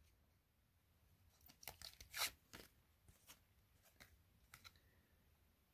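Faint paper rustles and soft clicks of trading cards being handled and flipped through by hand. A short cluster comes in the first half, then a few lighter ticks.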